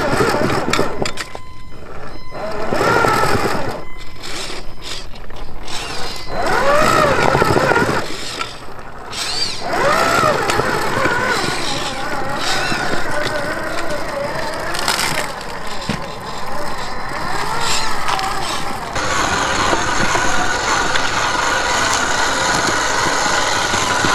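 Traxxas TRX-4 RC crawler's electric motor and gear drive whining, rising and falling in pitch as the throttle is worked while it climbs over rock, with short clicks and scrapes from the tyres and drivetrain.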